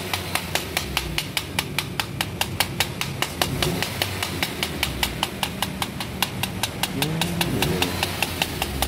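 Screwdriver blade scraping built-up dirt off a Nissan X-Trail T31 fuel pump module in quick, even strokes, about five sharp clicks a second. This is cleaning a fuel pump clogged after ten years without service.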